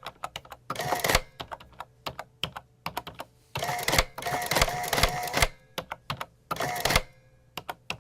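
Adding machine in use: a run of quick key clicks, then a short mechanical clatter as the machine cycles, repeated several times. The clattering cycles come about a second in, twice between four and five and a half seconds, and again near the end.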